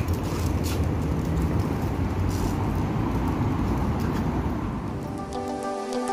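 Steady low rumble of city traffic with a few light clicks. About five and a half seconds in it gives way to gentle intro music with held notes.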